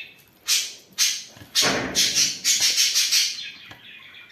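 Water poured onto small pieces of shredded paper napkin: two short splashes, then a longer pour of about a second and a half.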